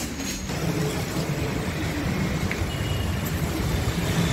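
Steady outdoor background rumble, like distant city road traffic, with no distinct events.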